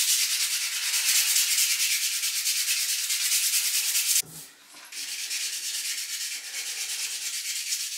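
600-grit wet sandpaper rubbed rapidly back and forth by hand over a black-primed 3D-printed plastic part in wet sanding: a steady rasping hiss. It stops briefly a little past halfway, then resumes a little softer.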